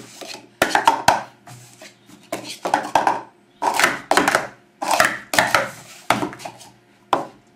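Speed Stacks plastic cups being rapidly stacked up and slid down on a stacking mat: quick runs of hollow plastic clacks, a new run about every second.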